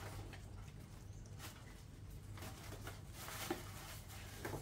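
Faint rustling of a plastic bag and a few light knocks and clicks as a bag is hung on a scooter's hook, over a low steady hum.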